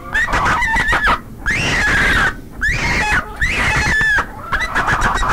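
Chickens squawking and cackling: a run of harsh calls that bend up and down in pitch, with two longer squawks in the middle.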